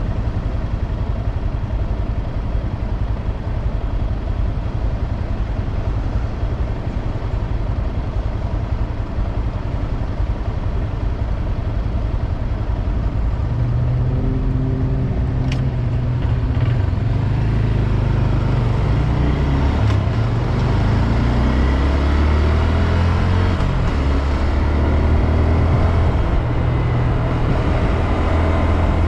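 2022 Honda Grom's single-cylinder engine and ride noise: a steady low rumble, then from about halfway an engine note that rises and falls, with one sharp click soon after it changes.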